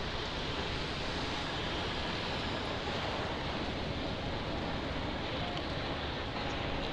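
Steady rush of wind on the microphone while riding an electric bicycle along a wet road, with road and traffic noise underneath.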